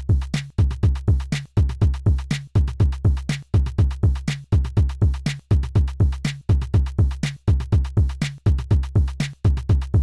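Korg Drumlogue drum machine playing a fast, looping pattern of deep analog kick drums, each dropping in pitch, with short high clicks over them. The bass drum parameters are being adjusted as it plays.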